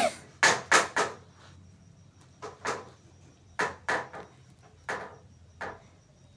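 Irregular sharp knocks and clinks of kitchen utensils being handled while salt is spooned out, about nine in all, the first three in quick succession.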